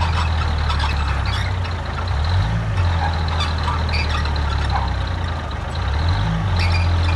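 Heavy diesel engine of earthmoving machinery running under load, a strong low hum that dips in pitch briefly twice, with scattered metallic clanks.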